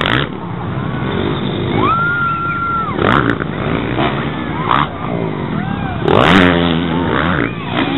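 Motocross dirt bike engines revving hard as bikes race along the track and over a jump. One bike passes close about six seconds in, loud, its pitch dropping as it goes by.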